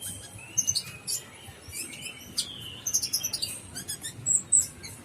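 Olive-backed sunbird singing: a busy run of rapid high-pitched chirps and short trills, loudest near the end.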